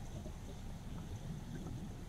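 River water flowing over a stony bed, heard underwater: a low, uneven, muffled rumble with a few faint ticks.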